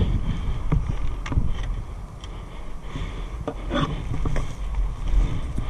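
Wind buffeting the body-worn camera's microphone as a low, steady rumble, with clothing and gear rustling and a few sharp clicks.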